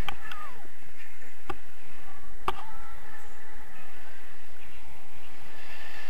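Wind rushing over a handheld action camera's microphone in paraglider flight: a steady low buffeting, with three sharp knocks in the first three seconds.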